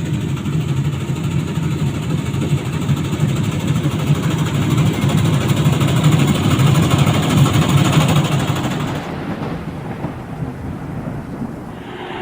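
Maxxi Bimo 102 rice combine harvester running, a loud steady rumble with a hissing top. About nine seconds in the hiss falls away and it gets quieter.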